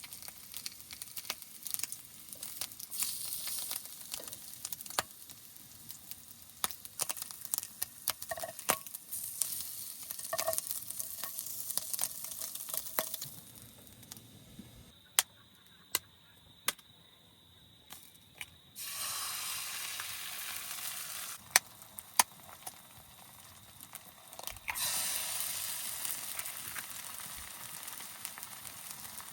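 Food sizzling and frying in a pan, with sharp clicks and taps of a utensil being stirred through it. The sizzle dies down about halfway, then comes back louder in two steady bouts, the second running about five seconds.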